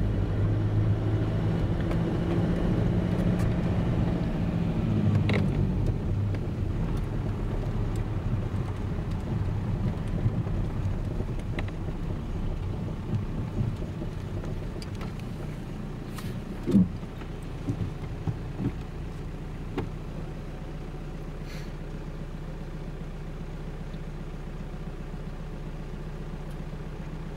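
Car engine and road noise heard from inside the cabin while driving up a narrow mountain road. The hum is louder for the first few seconds, then eases to a lower, steady hum as the car slows, with a few short knocks in the middle.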